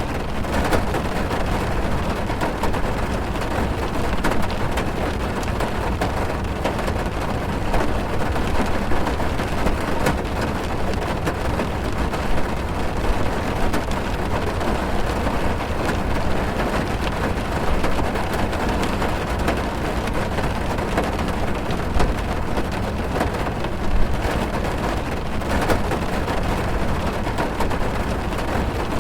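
Heavy rain drumming on a car's roof and windows, heard from inside the cabin: a steady dense patter with a low rumble, and now and then a single louder drop hit.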